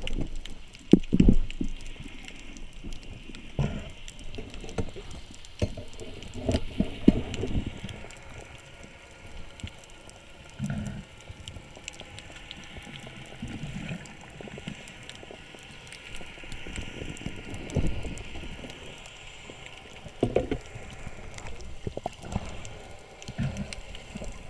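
Water sloshing and gurgling, with irregular low thumps and bubbling scattered throughout.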